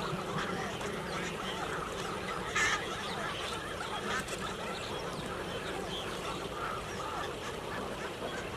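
A large colony of waterbirds calling at once: many overlapping calls in a dense, unbroken chorus.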